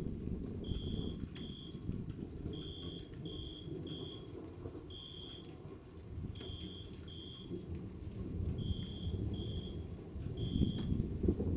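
Low rumble of distant thunder, swelling near the end. Over it a short, high-pitched chirp of steady pitch repeats in ones and twos, about one a second.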